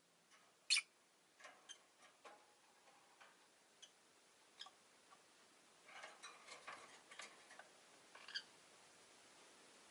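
Faint, scattered clicks and ticks from a rosy-faced lovebird moving about, with a sharper tick just under a second in and a cluster of small ticks about six to seven and a half seconds in.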